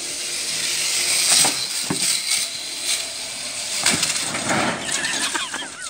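Zip-line trolley running along its cable, a rattling whir that grows louder, with several sharp knocks.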